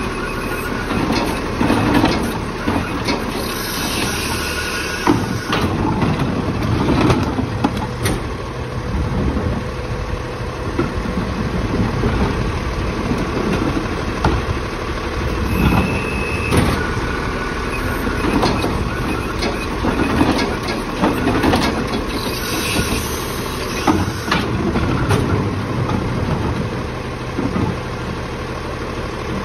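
Autocar ACX split-body garbage truck engine running at idle, with repeated knocks and clatters and a few bursts of hiss.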